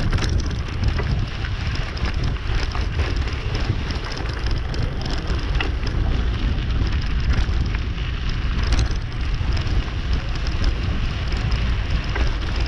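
Mountain bike rolling along a dirt and gravel trail, heard from a GoPro riding with it: a steady crackle of tyres over grit and small stones, with frequent clicks and rattles, over a low rumble of wind on the microphone.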